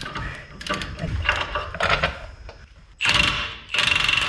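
Ratchet wrench clicking in short runs, fast and even, with a longer run near the end as a fastener on the truck's front suspension is turned.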